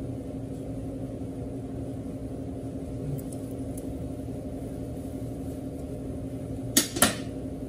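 A steady low electrical hum, with two sharp metallic clinks about a quarter second apart near the end as steel hand tools are handled.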